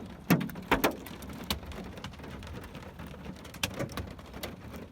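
Large hailstones, golf-ball size, striking a car's body and windshield: scattered sharp cracks at irregular intervals over a steady patter of rain and smaller hail.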